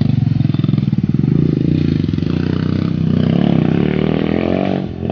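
Off-road dirt bike engine running and being revved, its pitch climbing about three seconds in, then dropping away near the end.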